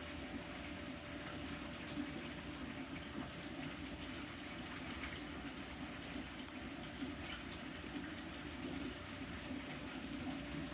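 Running aquarium's circulating water splashing and trickling steadily, with a faint steady hum underneath.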